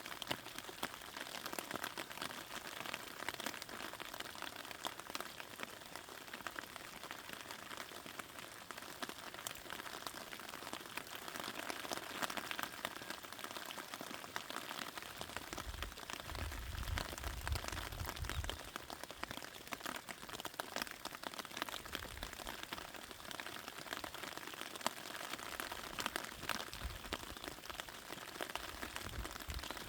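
Rain falling on a raspberry patch: a steady hiss with many small drop ticks throughout. For about three seconds around the middle a low rumble comes in under it, with shorter ones near the end.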